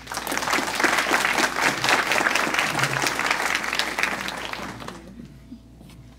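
Audience applauding, starting at once and dying away after about five seconds.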